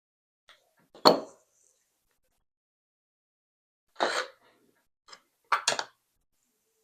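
Metal clinks and knocks as a picked Wilka Primus VX lock cylinder and its parts are handled while being taken apart. There is a sharp knock about a second in, which is the loudest, a longer clink around four seconds, and a quick double clink just before six seconds.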